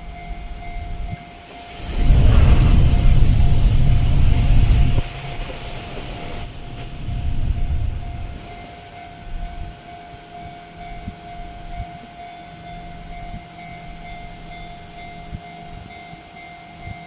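Level crossing alarm ringing steadily while a JR Tokaido Line electric local train passes close by. The train's rush of wheels on rail is loudest for about three seconds, swells again briefly a few seconds later, then dies away to a low rumble.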